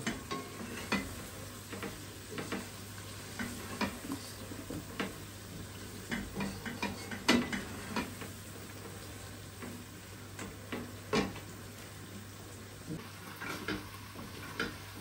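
Chicken livers frying in a pan with a soft sizzle while a spoon stirs them, clinking and knocking against the pan at irregular moments; two louder knocks come about seven and eleven seconds in. A faint steady hum runs underneath.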